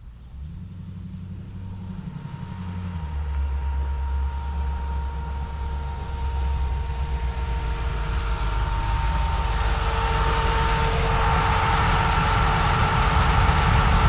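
Hot-rodded 1934 Ford pickup's 350 Chevy small-block V8, fed by three carburetors, rumbling at low speed as the truck drives closer, growing steadily louder.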